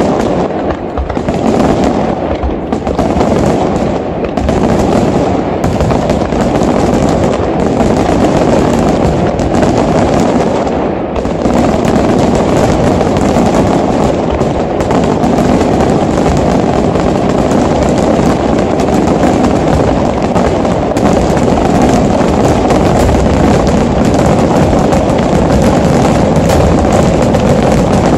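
Aerial fireworks display by Luigi Di Matteo Fireworks: a rapid barrage of shell bursts and crackle. For the first few seconds the bangs come in quick clusters with short gaps. From about eleven seconds in they run together into one continuous loud roll.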